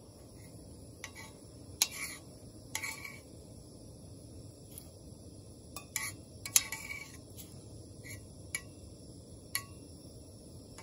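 Metal spoon stirring soup in a stainless steel pot, clinking against the pot's side about a dozen times at irregular intervals, each clink short with a brief ring, over a steady background hiss.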